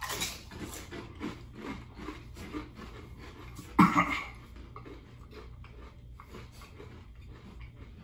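Crunching and chewing of the black Paqui One Chip Challenge chip, close and irregular, busiest in the first half. About four seconds in comes a brief louder throat noise.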